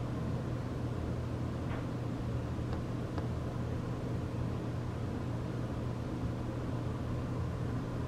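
Steady low mechanical hum over an even hiss, with a few faint clicks.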